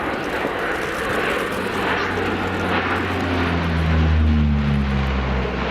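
Lockheed P-3 Orion's four turboprop engines and propellers passing overhead: a rushing drone with a low propeller hum that builds to its loudest about four seconds in.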